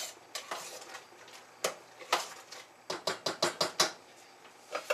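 A spoon clinking and scraping against a stockpot while bacon is stirred into boiling potatoes. The knocks are scattered at first, then come as a quick run of about half a dozen a little before the end.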